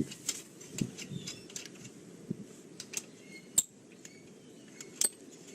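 Scattered light metallic clicks and clinks of hand tools and brake hardware being handled, with two sharper clicks, one past the middle and one near the end.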